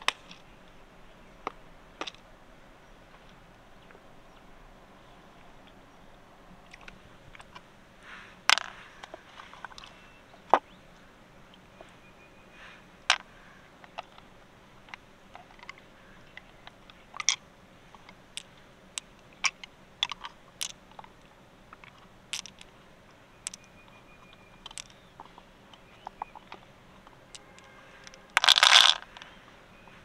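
Scattered sharp clicks and taps as freshwater mussel shells and pearls are handled, coming more often in the second half, with one louder, denser burst about a second long near the end.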